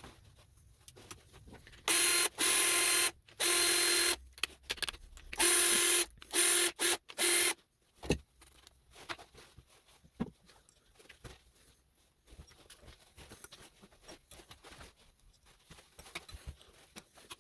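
A small electric power tool runs in about six short bursts of half a second to a second each, its motor at a steady pitch, starting about two seconds in. Light clicks and clinks of small metal parts being handled come before and after it.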